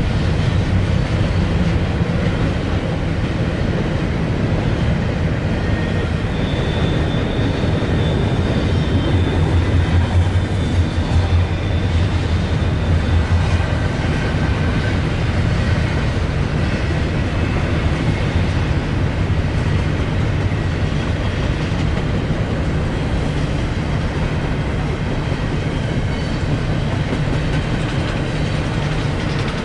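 Double-stack intermodal railcars of a BNSF freight train rolling steadily past, with a continuous low rumble of steel wheels on rail. A thin high squeal rides over it for several seconds about a quarter of the way in.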